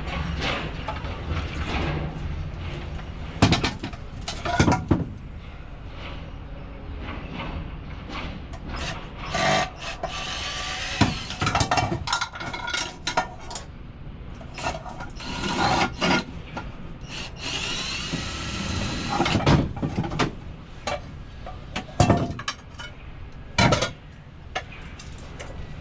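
Irregular knocks, clanks and scraping of scrap being handled, over a steady low hum.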